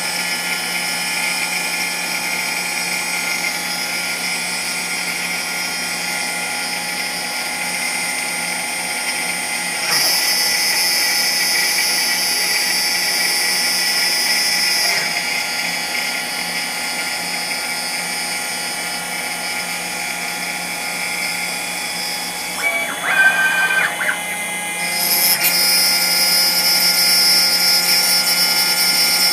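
6040 CNC router spindle running a single-flute end mill through aluminium, a steady high machine whine. The whine grows louder twice, from about 10 to 15 seconds in and again near the end, with a brief wavering change in pitch around 23 seconds.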